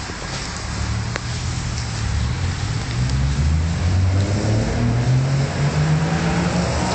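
High-pressure car-wash wand spraying foam onto a muddy car, a steady hiss, under a low engine hum that grows louder and rises in pitch from about two seconds in.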